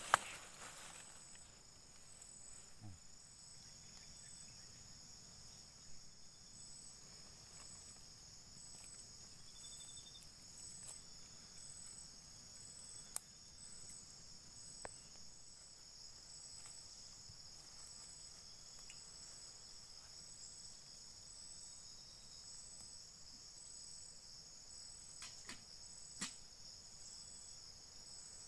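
Steady high-pitched insect chorus, crickets or similar, with an evenly pulsing upper note over a continuous shrill hum, and a few faint ticks and clicks now and then.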